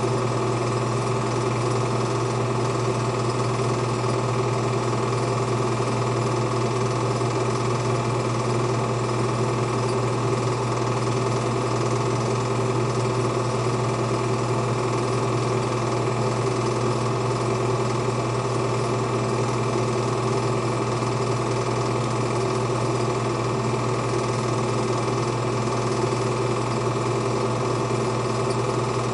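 Home-movie film projector running: a steady mechanical clatter and whir from the motor and film transport.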